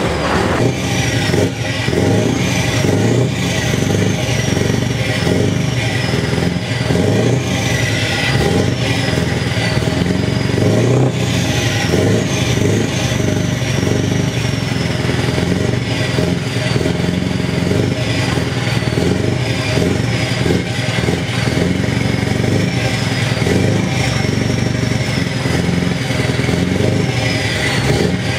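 Scania V8 diesel truck engine idling steadily, a deep even running. A faint high whistle falls in pitch every few seconds.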